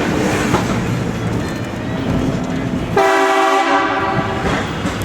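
Air train horn sounding one blast of about a second and a half, a chord of several steady tones, about three seconds in. Before it there is a steady haze of vehicle and road noise.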